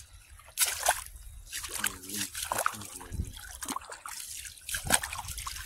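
Feet wading through shallow seawater, sloshing and splashing irregularly with each step.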